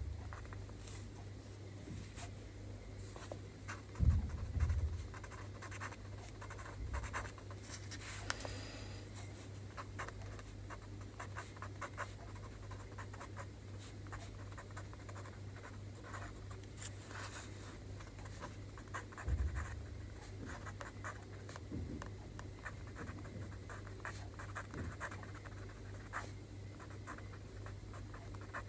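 Pen writing Chinese characters by hand on a sheet of paper: many short scratching and tapping strokes of the nib, over a steady low hum. A couple of soft low thumps, about four seconds in and again near the middle.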